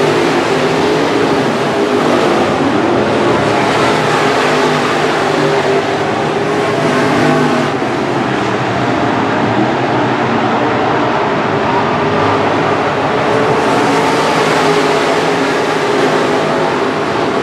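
A pack of IMCA Modified dirt-track race cars running laps, their V8 engines sounding together in a steady loud drone, several engine pitches rising and falling as the cars go through the turns.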